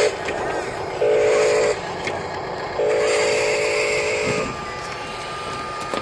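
RC dump truck's electronic air horn sounding two blasts, the second longer, then from about halfway through a thin steady whine of the small motor raising the tipper bed.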